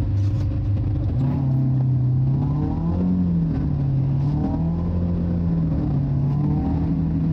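BMW E36 318is four-cylinder engine heard from inside the cabin while driving. The engine note rises about a second in, climbs briefly near three seconds and eases back, then holds fairly steady.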